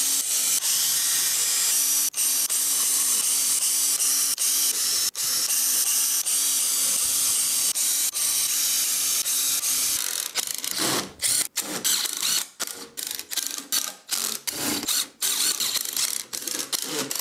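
Cordless driver driving 3-inch deck screws into the wooden joints of a workbench frame. It runs almost without a break for about the first ten seconds, then in short, broken bursts.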